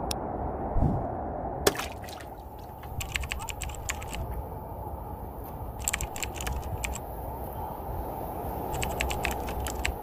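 Keyboard typing sound effect: three bursts of rapid key clicks, in time with captions being typed out. Underneath runs the steady rush of ocean surf.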